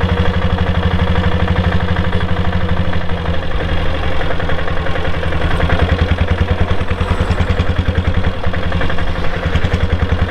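Royal Enfield diesel Bullet's single-cylinder diesel engine running steadily while the bike is ridden, with an even, rapid firing beat.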